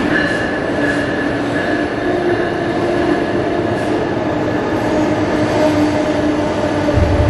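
Amtrak train, a Siemens ACS-64 electric locomotive hauling stainless-steel passenger coaches, moving along a station platform: a steady heavy rumble with a held whine of several tones over it. A deeper rumble comes in near the end.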